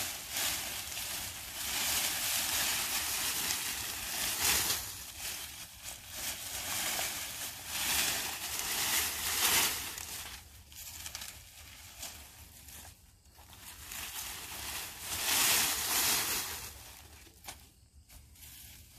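Dry, dying garden vines and leaves rustling and crunching as they are pulled and handled by hand, in irregular surges that thin out in the second half.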